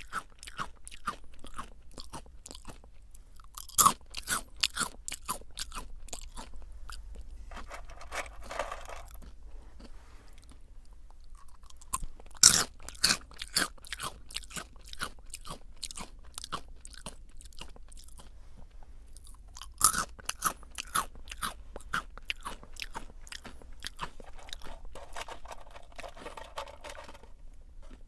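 Close-miked biting and chewing of Jagariko, crunchy fried potato snack sticks: three loud bites, about four seconds in, near the middle and about two-thirds through, each followed by a run of rapid crunching that softens as the pieces break down.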